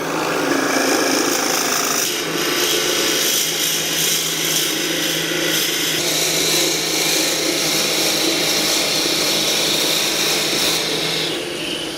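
Power drill boring into a purpleheart wood blank to deepen the hole for a hollow screwdriver stem: a steady motor hum under the scraping of the bit cutting wood, easing off near the end.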